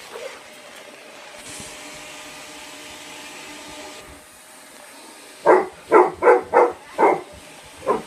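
A dog barks six times in quick succession, about three a second, starting five and a half seconds in, at a vacuum cleaner whose motor hums steadily throughout.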